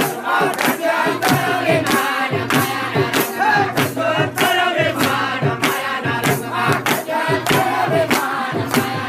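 Gujarati devotional bhajan: voices singing together over a steady percussion beat.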